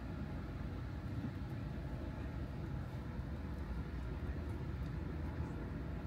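Steady low rumble and faint hum inside a parked electric car's cabin during DC fast charging, with no sudden sounds.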